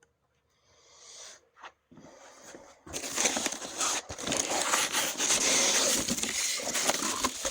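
Packaging being handled: a few faint rustles and a click, then from about three seconds in loud, continuous crinkling, scraping and rustling as boxes and wrapping are moved about.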